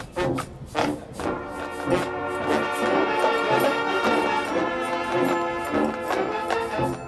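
Marching band playing: sharp drum hits, then the brass and winds hold a loud sustained chord, with drum hits coming back near the end.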